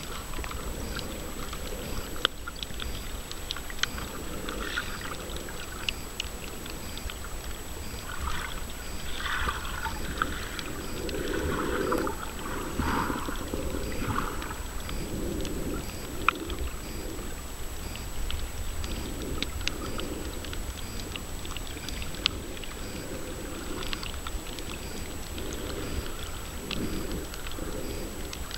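Muffled underwater water noise around a camera held below the surface while snorkeling: a steady low rumble with irregular swells of sloshing every second or two, and scattered sharp clicks.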